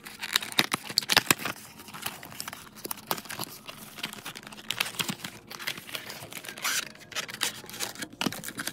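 Earphone packaging being handled and pulled apart: the cardboard box and a clear plastic blister tray crinkle and crackle, with many sharp clicks, busiest about a second in.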